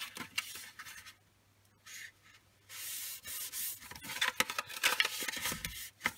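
Fingers rubbing and pressing purple cardstock along a freshly taped seam, a dry papery friction sound, then the folded card being handled and opened out into a box, with choppier rustling and small crackles from about four seconds in.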